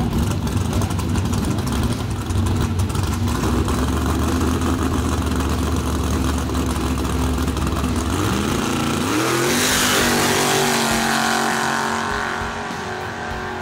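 Chevy S-10 drag truck's engine running steadily at the starting line, then revving hard and launching about eight seconds in, its pitch climbing sharply as it pulls away. The launch is hard enough to lift the front wheels.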